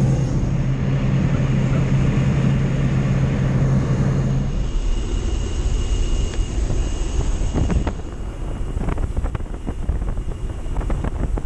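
Small high-wing propeller plane's engine and propeller, a loud steady drone heard from inside the cabin. A low steady hum in it drops out about halfway through, and a few sharp knocks come near the end.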